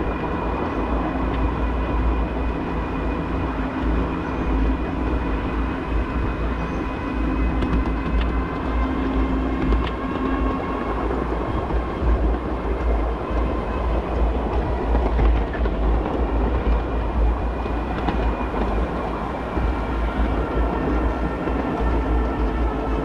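Ride-on miniature railway train running along the track: a steady rumble of wheels on rail with a thin, steady whine and occasional clicks over rail joints.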